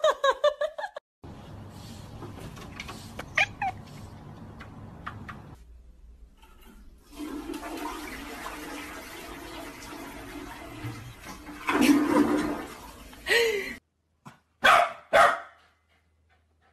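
A toilet flushing, the water rushing for several seconds as a cat paws the flush lever. Then a few short dog barks from a corgi near the end.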